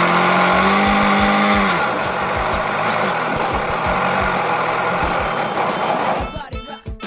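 Small nitro glow engine of an RC model airplane running at high throttle with a steady high pitch, then throttled back about two seconds in. Music comes in near the end.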